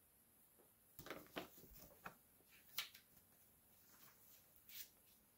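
Faint rustles and a few soft ticks of a paper picture book being handled and its page turned.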